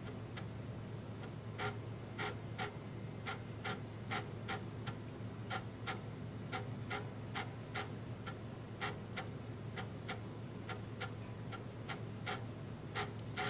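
A Commodore 1581 replica floppy drive, built around a salvaged Amiga 3.5-inch drive mechanism, clicking irregularly as its read head steps between tracks while it reads a disk, about two to three clicks a second, some in quick pairs. A steady low hum runs underneath.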